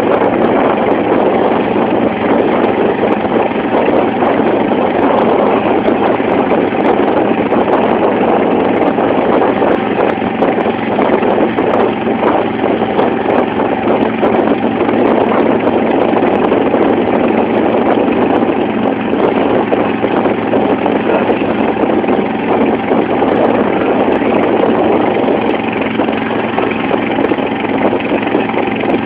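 Engine of a wooden banka motorboat running steadily under way, a continuous loud drone mixed with the rush and splash of water off the bow.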